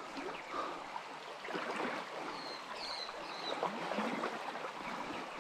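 Small trout stream flowing steadily, an even rush of running water.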